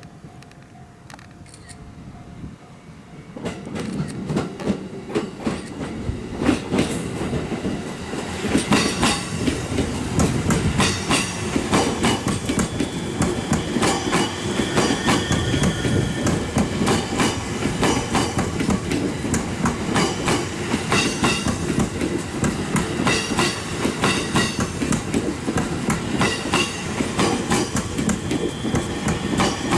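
E257 series 0 electric multiple unit passing, its wheels clattering over rail joints and points, starting about three seconds in and getting louder, with short stretches of high wheel squeal.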